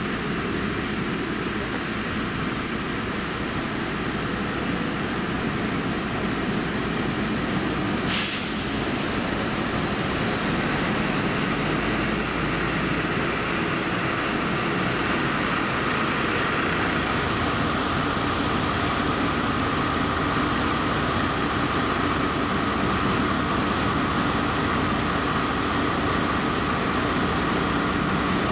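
City bus diesel engines running close by as buses move through the interchange. There is a short, sharp burst of hiss about eight seconds in, and after it a steady high whine runs on.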